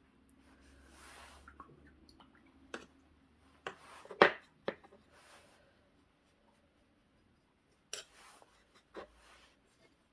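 Soft scratchy strokes of a small paintbrush dabbing underglaze onto a bisque-fired ceramic piece, with a few light clicks and taps, the sharpest about four seconds in.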